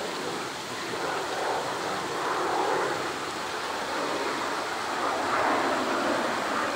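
Steady rushing noise of running water, swelling and easing every second or two, with no separate knocks or calls.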